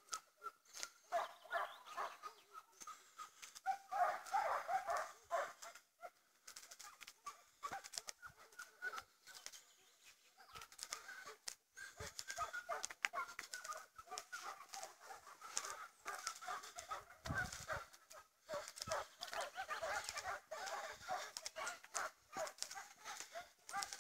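A pack of Serbian hounds baying over and over in short clustered cries, giving tongue as they run a hare's scent.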